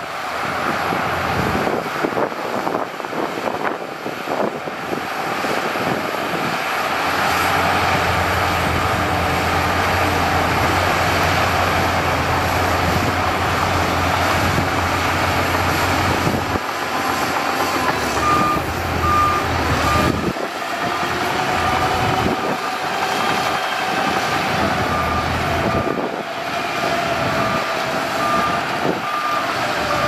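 Shantui DH17C2 crawler bulldozer's diesel engine working under load as it pushes dirt, with knocks from the tracks and blade in the first few seconds. A little past halfway its reversing alarm starts beeping, about two beeps a second, over the engine.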